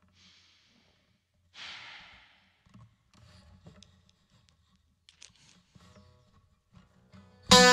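A quiet pause with one audible breath about a second and a half in and faint clicks of the guitar being handled. Near the end a twelve-string acoustic guitar comes in suddenly and loudly with a strummed, ringing chord.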